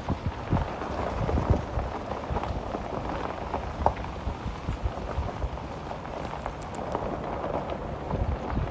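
Truck tyres rolling over a rough, rutted unpaved road, with a steady crackling crunch and frequent low bumps and knocks. Wind buffets the phone microphone held outside the truck.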